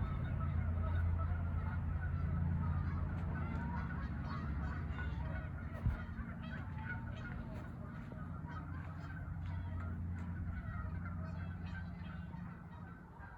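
Many birds calling at once, a continuous chatter of short honking calls, over a steady low hum, with a single sharp knock about six seconds in.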